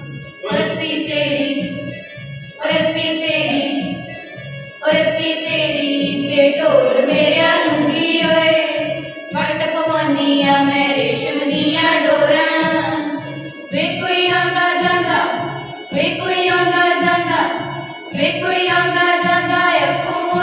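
A group of girls singing a folk song together into microphones, in phrases with short breaks between them, over a steady low beat.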